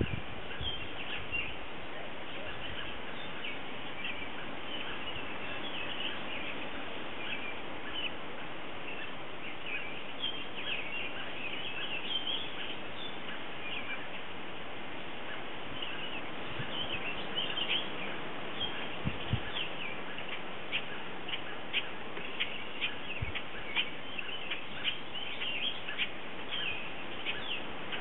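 Small birds chirping in short high notes over a steady outdoor hiss. The chirps come thicker and more regularly in the second half.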